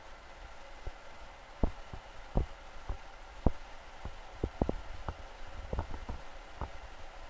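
Freight train's covered hopper cars rolling past at a distance: a steady rolling hum with irregular knocks and clunks from the wheels.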